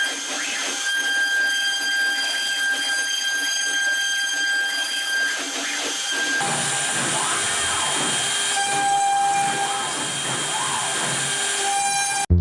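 A CNC router's spindle runs with a steady high-pitched whine and a hiss as it cuts into white pine. About halfway through, the sound changes to another take, where short rising and falling tones come and go over the whine.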